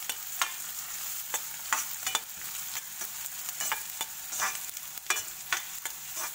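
Sliced onions sizzling in ghee and oil in a kadhai, with a steel spatula repeatedly scraping and knocking against the pan as they are stirred.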